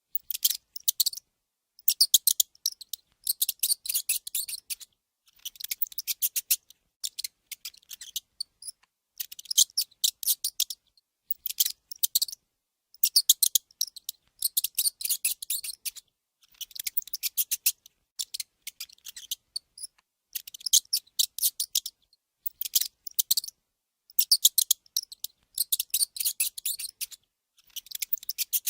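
Mouse squeaking: rapid runs of high-pitched squeaks and chirps in bursts of one to two seconds, with short pauses between them.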